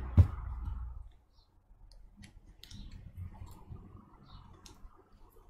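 A single knock just after the start, then faint scattered clicks and taps of fingers working the glued-in battery cells of an opened MacBook Pro Retina.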